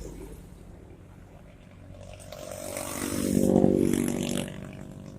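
A small engine passing by, growing louder to a peak about three and a half seconds in, then fading away.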